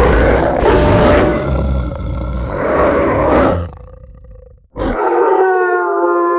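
Designed demon-wolf creature sound effect: a long, rough roar with a deep rumble, lasting about three and a half seconds and then fading out. After a short pause and a brief burst, a steady, pitched howl begins about five seconds in.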